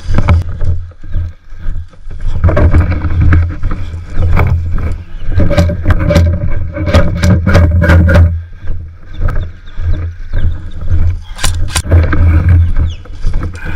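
Loud, uneven rumble of wind and handling noise on a body-worn camera on the move, with scattered sharp clicks, bunched in the middle and two close together near the end.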